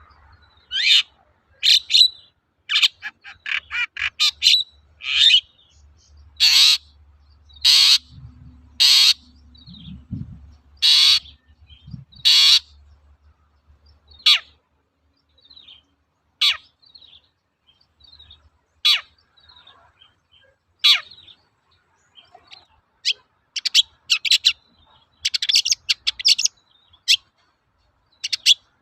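Long-tailed shrike (cendet) singing: short, harsh rasping notes and sharp chips. A run of loud grating notes comes about a second apart in the first half, then scattered single calls, then a quick chattering burst near the end.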